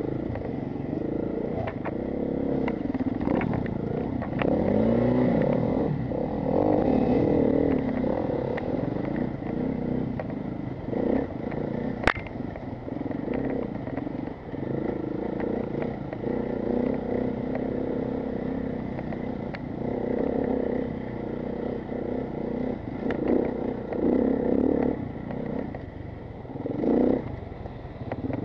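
Off-road motorcycle engine revving up and down continually as it is ridden hard along a rough trail, with the bike clattering over bumps and one sharp knock about halfway through.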